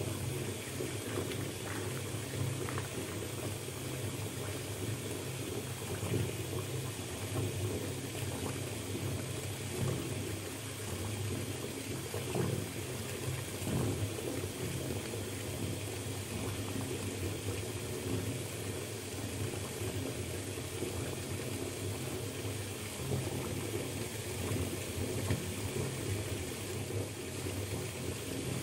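Water running from the tap into a bathtub as it fills: a steady, deep rush of water with a few brief splashes now and then.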